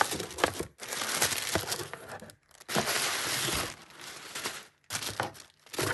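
Tissue paper crinkling and rustling as it is folded back inside a cardboard box, in three long bursts, then a few sharp crackles near the end.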